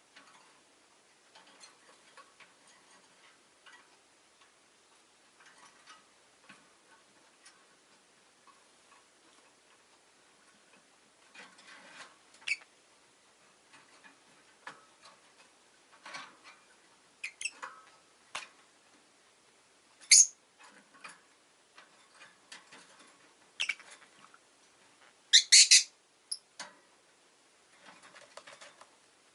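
Rosy-faced lovebirds giving short, sharp high-pitched chirps among quiet ticking and rustling: one loud chirp about twenty seconds in and a quick run of calls near the end.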